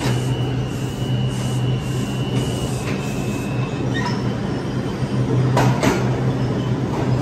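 Subway train running through a tunnel with a steady rumble of wheels on rail. A thin high squeal runs through the first few seconds, and two sharp clicks come close together about six seconds in.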